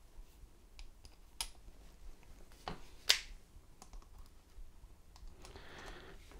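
Scattered faint clicks and taps of small hardware being handled: a screw being set into a motorcycle ignition lock housing and a cordless drill-driver's socket bit being fitted onto it. The sharpest click comes a little past three seconds in.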